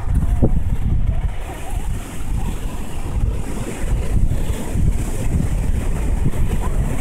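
Wind buffeting the microphone in uneven gusts, with the hiss of surf behind it.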